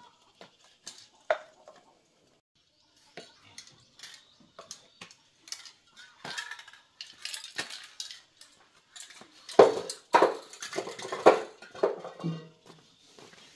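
Metal spray cans and hand tools clinking and clattering as they are picked up and set down, a string of short knocks that grows into a louder flurry of clatter in the second half.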